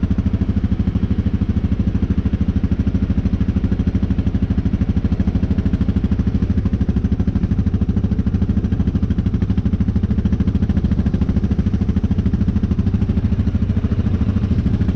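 ATV (quad bike) engine running steadily at low revs, close to the microphone, with an even rapid pulse and no revving.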